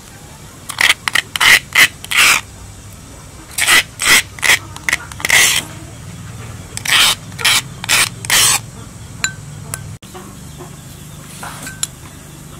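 Metal spoon scraping chili paste out of a stone mortar and off against a ceramic bowl, in three runs of quick short scrapes.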